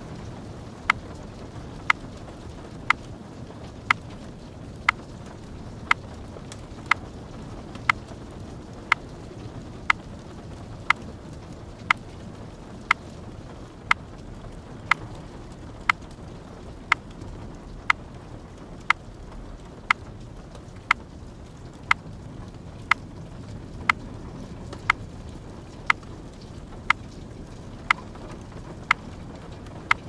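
A clock ticking steadily, about once a second, over a soft steady hiss of light rain.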